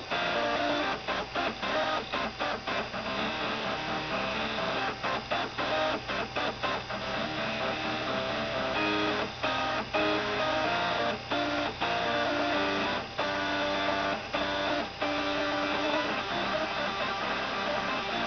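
Stepper motors buzzing out a tune together, each motor holding a pitched note that steps quickly to the next. Several notes sound at once, with short breaks between phrases.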